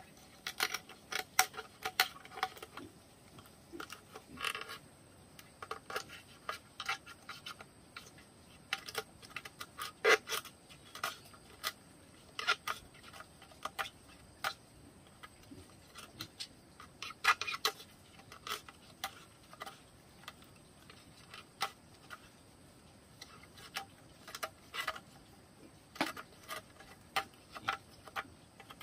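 Small knife scraping and paring inside a round hole cut in a thick bamboo tube: irregular short scrapes and clicks, a few sharper ones standing out.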